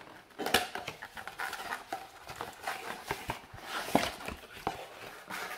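A cardboard trading-card box being pulled open by hand: the lid and flaps creak and rub, with scattered clicks and crackles and a sharp crack about four seconds in.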